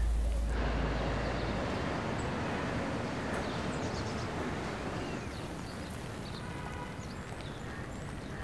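Steady rain falling, an even hiss. A deep low rumble fades away in the first second or two.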